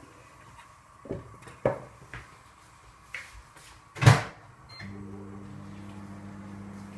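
Kitchen knocks and clatter, a few light ones and one sharp bang about four seconds in, then a short high beep and a steady electrical hum as an appliance starts up.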